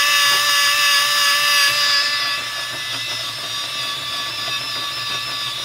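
Daiwa Seaborg 400J electric fishing reel's motor winding braided line onto its spool at high speed: a steady high-pitched whine that softens a little about two seconds in.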